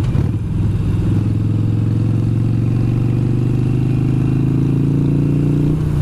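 Harley-Davidson V-twin motorcycle engine running steadily at cruising speed, with a brief dip in the engine note near the end.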